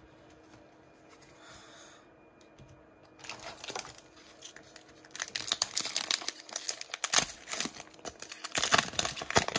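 A foil Pokémon TCG booster pack wrapper being torn open by hand, with crinkling and ripping. It starts about three seconds in and is loudest over the last four seconds.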